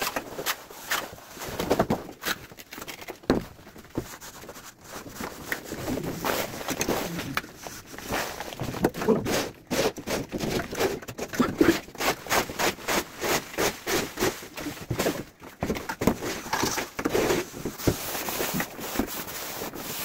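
Plastering trowels scraping and slapping cement mortar onto a concrete ceiling and wall: an irregular run of sharp clicks, knocks and scrapes.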